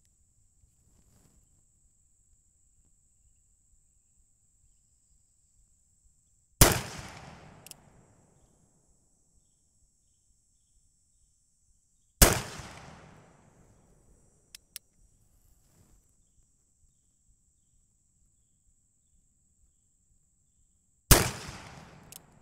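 Three shots from a .44 cap-and-ball Armi San Paolo 1860 Army Colt replica revolver, about six and then nine seconds apart, each a sharp crack with an echoing tail that dies away over about a second. A few small clicks follow the first two shots.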